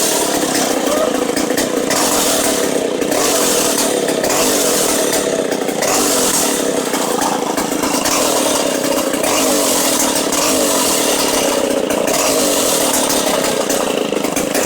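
Stihl Contra chainsaw's large single-cylinder two-stroke engine running loud and steady.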